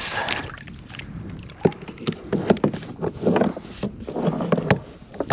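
Water splashing and sloshing beside a plastic sit-on-top kayak as a freshly netted pike is held in a landing net at its side. Several sharp knocks on the hull come in among the splashes, the clearest about a second and a half in and again near the end.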